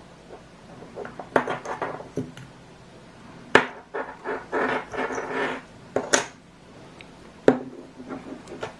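Handling noise of a small plastic toy figure and its USB cable: several sharp plastic clicks and knocks, with rustling and scraping in between.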